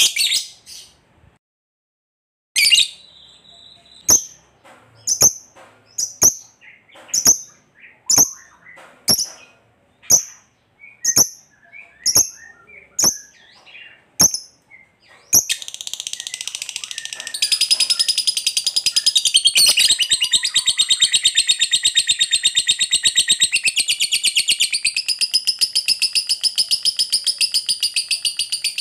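Lovebird calling: sharp single chirps about once a second, then about halfway through a long, rapid chattering trill, the 'ngekek panjang' song, which gets louder a couple of seconds after it starts and runs on without a break.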